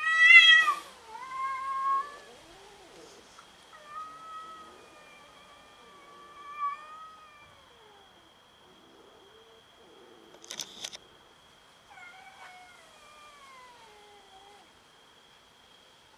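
Cats in a standoff: a loud yowl at the start as one swats at the other, then long, wavering caterwauling yowls that rise and fall, a short hiss about ten seconds in, and more falling yowls near the end.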